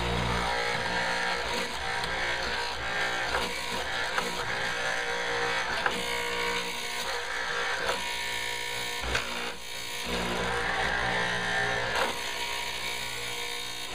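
Harbor Freight benchtop hollow-chisel mortising machine running, its electric motor humming steadily while the chisel and auger are worked into a wood practice piece, the hum changing in strength as the cut loads and unloads, with a few sharp knocks. It runs with a sound that doesn't sound very good.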